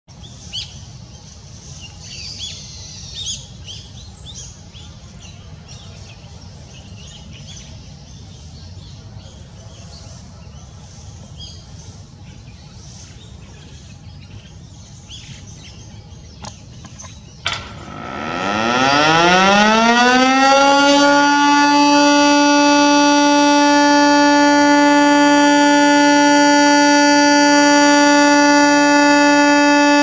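Birds chirping over a low steady background, then about 17 seconds in a click and a rooftop multi-horn motor siren winds up. Its pitch rises for about three seconds to a steady, loud wail that holds to the end. It is the fire brigade's monthly fire-prevention siren, sounded at 8 a.m.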